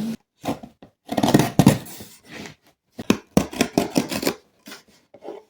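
Parcel packaging being opened by hand: irregular bursts of cutting, scraping and rustling, loudest from about one to two seconds in and again from about three to four seconds in.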